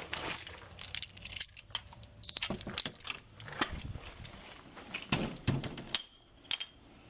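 Keys and metal gear jangling and clicking in irregular bursts, with one short, high beep about two seconds in, the loudest sound.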